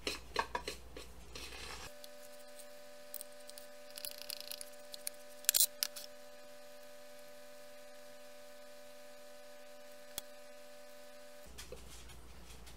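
Spatula scraping thick, sticky peanut butter bread batter out of a mixing bowl into a glass loaf pan: quick scraping strokes at first, then scattered scrapes and taps with a sharp clack about five and a half seconds in. A steady hum of several tones holds from about two seconds in until near the end.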